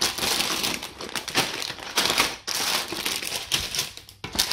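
Sealed plastic bags of LEGO pieces crinkling and rustling as a hand sorts through them in the set's box, in a few spells with brief pauses.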